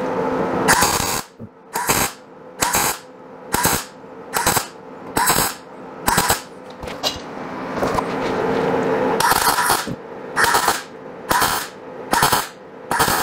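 MIG welder tack-welding steel patch pieces into the chopped roof seam of a 1951 Chevy truck cab: a dozen short bursts of welding, about one a second, with a pause of about two seconds in the middle. The welds are kept very short to keep heat out of the thin sheet metal.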